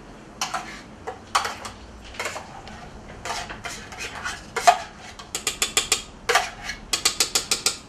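Metal utensil scraping and knocking against a metal container and a stainless-steel stand-mixer bowl as pastry cream is spooned in: scattered clinks, then quick runs of taps, about eight a second, in the second half.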